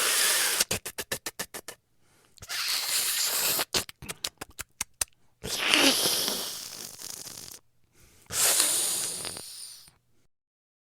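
Blood squirt sound effects: a series of hissing liquid sprays. Some are broken into quick pulsing spurts, about eight a second. Others are longer gushes that fade away, the last two lasting about two seconds each.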